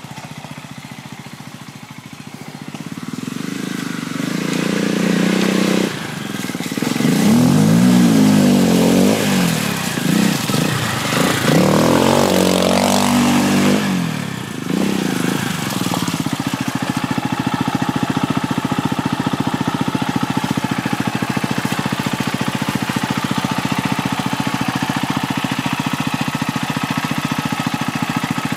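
Quad bike engine coming closer and revving up and down as it drives up, then settling into a steady idle for roughly the second half.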